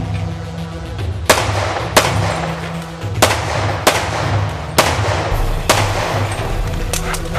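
Pistol shots in an action-shooting course of fire, mostly in pairs: six sharp shots, then two fainter ones near the end. Background music plays underneath.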